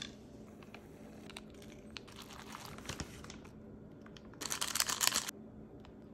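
Plastic food packaging crinkling and rustling with small clicks as a cup noodle is prepared, with a louder burst of crinkling lasting about a second, a little past the middle.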